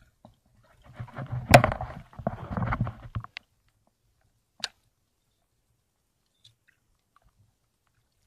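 Water splashing and sloshing in shallow water among rocks for about two seconds, with a sharp knock partway through, then a single sharp click.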